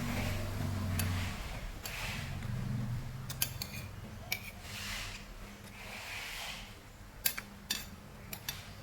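Eating at the table: metal cutlery clinking and tapping against dishes, with a handful of sharp clicks in the second half.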